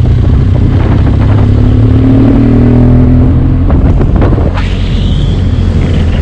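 BMW R1200GS boxer-twin engine running through its stock exhaust on the move, a dense low drone whose pitch sags a little midway. A high tone comes in about four and a half seconds in and falls away.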